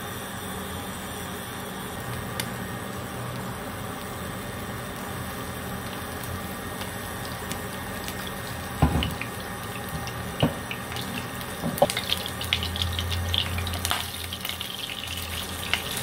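Cooking oil poured into a white granite-coated Carote frying pan on an induction cooker over a steady hiss, then sliced garlic going in and a spatula knocking against the pan a few times. From about three-quarters of the way in, the garlic begins to sizzle with fast light crackling as the oil heats.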